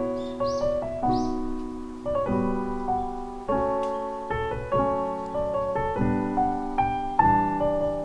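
Background piano music: gentle, sustained chords struck about once a second, each note fading before the next.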